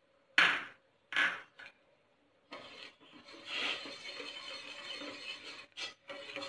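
A metal spoon scraping and stirring sugar granules in a little water across the bottom of a stainless steel pot. Two short, sharp scrapes come first, then about three seconds of steady scraping, then two more short scrapes near the end.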